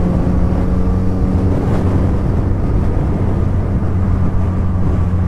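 Suzuki Hayabusa's inline-four engine running at a steady speed while riding, its low note even in pitch under a constant rush of wind and road noise.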